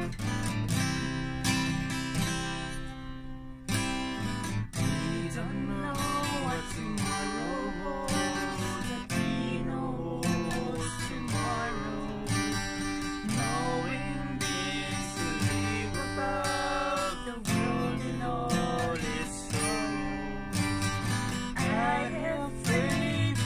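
Acoustic guitar strummed in a slow, gentle rhythm. From about six seconds in, a man and a woman sing a duet over it.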